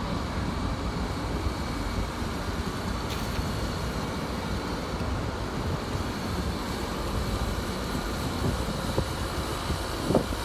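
Steady low rumble of city road traffic, with a brief louder sound near the end.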